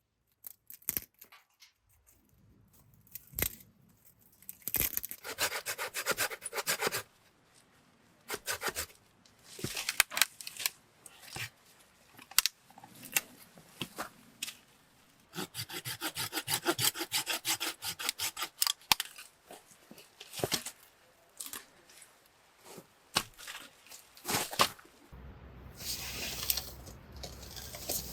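Wood being cut by hand, in several bursts of quick, repeated rasping strokes separated by pauses and single knocks, as firewood is prepared for a campfire.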